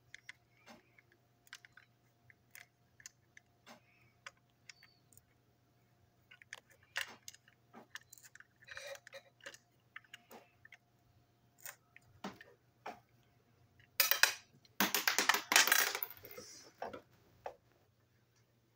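Small plastic parts of a motorized toy engine clicking and tapping as it is taken apart by hand, then a louder clatter of loose parts on the table about fourteen seconds in, lasting a couple of seconds.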